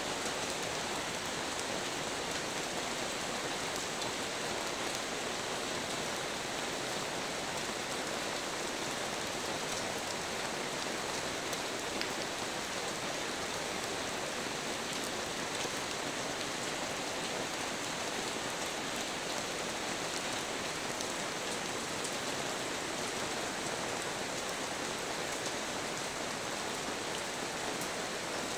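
Heavy rain pouring steadily onto a paved yard under standing water and onto trees: a dense, even hiss of drops, with a few sharper drop hits standing out now and then.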